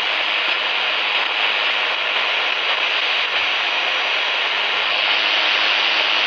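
Steady hiss of static from a Grundig Yacht Boy 215 portable radio's speaker while its tuning knob is turned: the set is tuned between stations, with no signal locked in.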